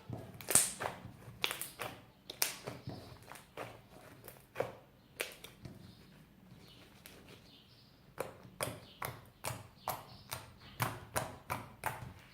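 Hands squeezing and stretching a fluffy slime, giving a run of sharp, irregular pops and clicks, with a quieter lull in the middle before the popping picks up again.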